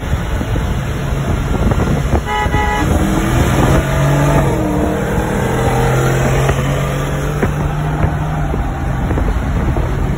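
Ford F-150 pickup engines running and revving as the trucks drive side by side, heard from inside one truck's cabin. A short car horn toot sounds a little over two seconds in.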